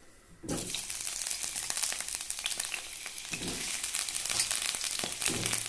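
Potato chunks frying in hot mustard oil in a wok: a dense sizzle full of crackling pops that starts suddenly about half a second in, as the potatoes hit the oil, and carries on steadily.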